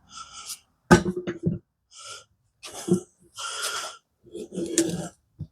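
Rubber tire bead being forced over a mini bike wheel rim on a tire changer: a series of short scraping, squeaking strokes of rubber and metal, with a sharp knock about a second in.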